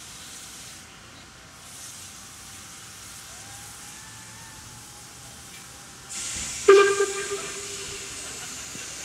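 Steam locomotive sounding a short, loud blast on its steam whistle about two thirds of the way in, the departure signal, with a rush of steam hiss starting just before and hissing on after it.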